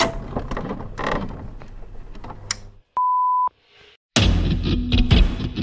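Scattered clicks and knocks, then a single steady high beep lasting about half a second. Loud heavy rock music with distorted guitar starts about a second after the beep.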